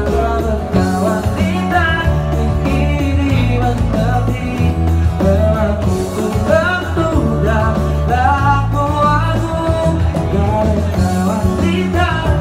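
Live pop-rock band playing: a male singer sings over guitar and a steady bass line, picked up loudly by a phone microphone in the room.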